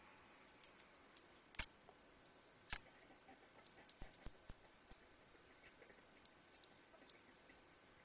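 Near silence: faint room tone with scattered small clicks and ticks, two sharper ones about one and a half and nearly three seconds in, and a quick run of faint ticks a little after the middle.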